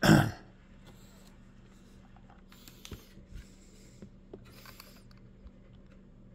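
A short loud knock or breath right at the start, then faint clicks and rustles of multimeter probes and leads being handled against a small electronics module, over a low steady hum.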